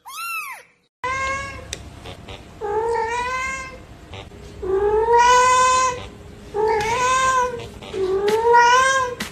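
A cat meowing: one short high mew, then after a break a series of five long, drawn-out meows about a second apart, over a background hiss.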